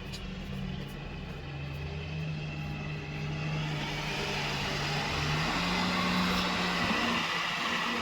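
Diesel engine of earth-moving machinery running steadily, getting louder through the middle and rising in pitch about five and a half seconds in.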